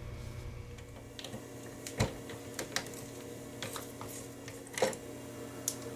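Light clicks and taps of hands working at the circuit breakers of a manual transfer switch, pulling a wire free from a breaker terminal to swap the breaker. The two louder knocks come about two seconds and about five seconds in.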